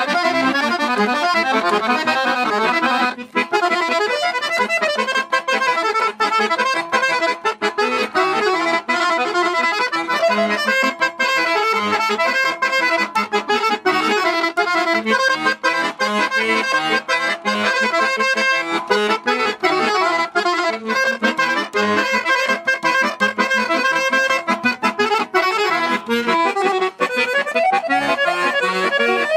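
Solo Guerrini piano accordion playing a Serbian kolo dance tune, a dense stream of quick melody notes over the bass.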